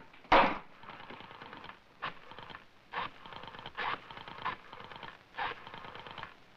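A rotary telephone being dialed: about six digits, each a turn of the dial followed by a short run of quick, even clicks as it spins back.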